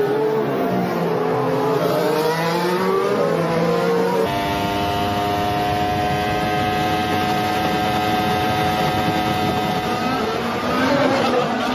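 Formula One race cars' turbocharged V6 engines at racing speed. At first the pitch swoops up and down as cars rev and pass. About four seconds in it cuts to an onboard engine holding a steady high note that climbs slowly under acceleration, and near the end the pitch begins to swing again.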